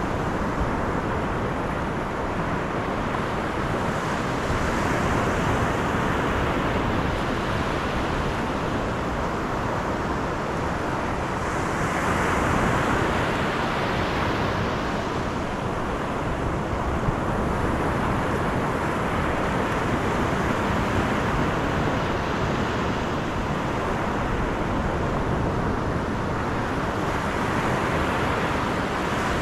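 A car driving along a road: steady tyre and road noise mixed with a rush of wind, swelling a little now and then.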